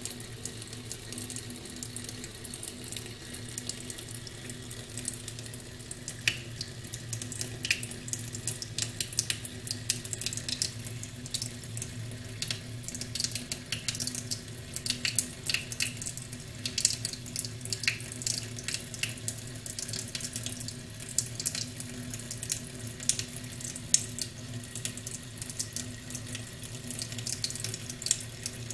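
Kitchen mixer tap running a thin stream into a stainless steel sink, with irregular spattering splashes throughout, most frequent in the middle, over a low steady hum.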